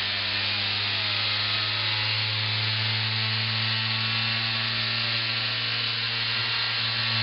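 Homemade centrifuge's electric motor spinning at high speed with no tubes loaded: a steady electric hum, with fainter tones sliding up and down above it.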